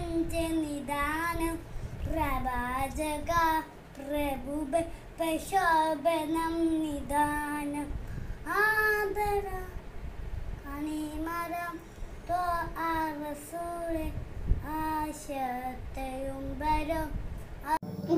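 A young boy singing solo, unaccompanied, in long held phrases.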